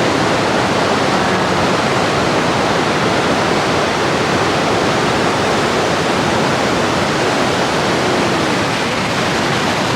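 Niagara Falls' falling water rushing loudly and steadily, a dense, even noise with no break.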